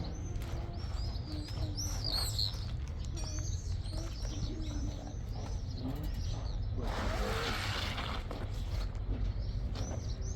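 Small bird chirping over and over, a quick string of short high chirps, with a noisy rush lasting about a second around seven seconds in.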